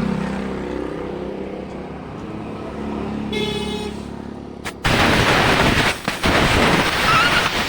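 Roadside traffic sound: a vehicle running steadily, a short horn toot a little over three seconds in, then a loud rushing noise from about five seconds on.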